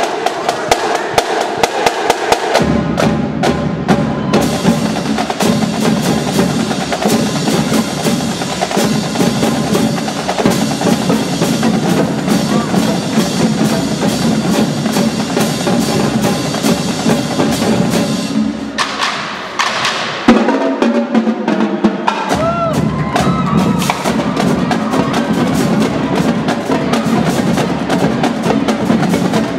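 High school marching drumline playing a fast, dense cadence of snare drum strokes and rolls over bass drums. About two-thirds of the way in, the low drums drop out for a couple of seconds, then the full line comes back in.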